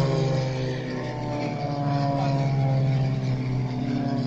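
Propeller engine of a small single-engine aerobatic plane droning as it flies low overhead, its pitch sliding slowly downward as it passes.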